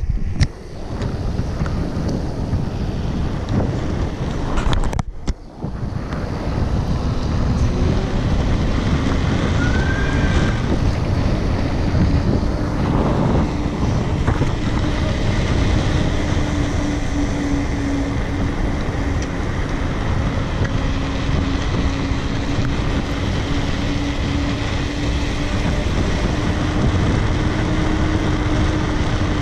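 Wind rushing hard over the microphone of a camera on a bicycle coasting fast downhill on asphalt. The noise dips briefly about five seconds in, and from about seven seconds a steady low hum runs under it.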